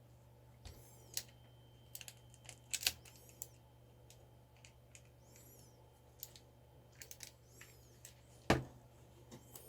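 Scattered small plastic clicks and taps as mechanical keyboard switches are handled and fitted into the keyboard's switch plate, with a sharper knock near the end.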